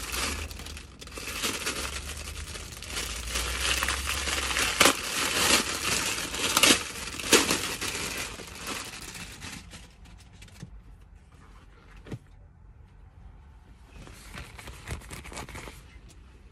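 Clear plastic poly bag crinkling and crackling as it is pulled open and a T-shirt is drawn out, with a few sharp loud crackles about five to seven seconds in. It goes quieter after about ten seconds, with softer rustling and a short burst of crinkling near the end.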